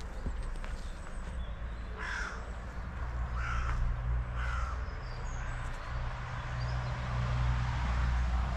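A crow cawing three times, short harsh calls about a second apart, over a steady low rumble.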